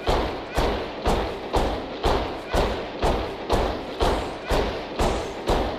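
Heavy stomps of marching boots in unison, a steady beat of about two a second, each thud with a short echoing tail.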